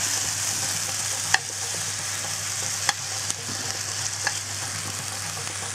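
Pieces of beef fillet sizzling as they sear in a hot frying pan, a steady hiss. A few sharp clicks of metal tongs against the pan as the meat is turned.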